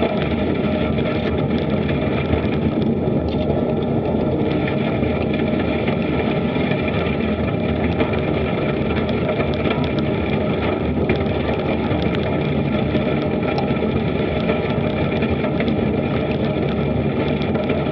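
Steady riding noise picked up by a bicycle-mounted action camera: wind on the microphone and tyres rolling over gravel, with small rattling clicks.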